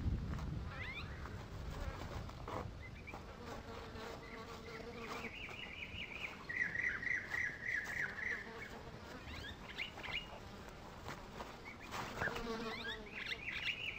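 Wild birds chirping and calling, busiest in the middle and again near the end, over soft scratching of loose soil as a Nile monitor lizard digs with its claws into a crocodile nest.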